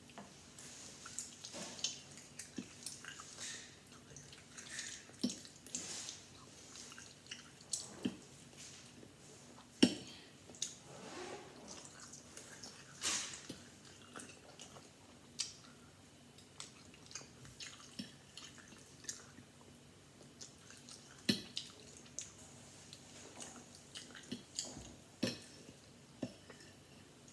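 Close, wet chewing and mouth sounds of a person eating eggs with cheese: irregular soft smacks and ticks throughout, with a few sharp clicks standing out.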